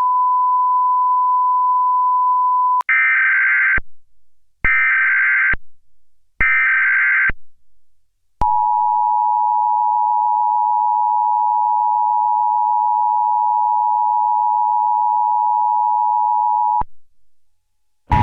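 Emergency Alert System broadcast tones. A steady single beep tone runs for about three seconds, followed by three short screechy bursts of the SAME digital data header. Then comes the two-tone EAS attention signal (853 and 960 Hz), held for about eight seconds before it cuts off.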